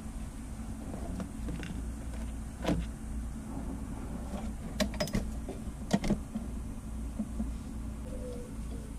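A few light clicks and knocks from a multimeter and its test leads being handled against a metal electrical box, over a steady low background hum.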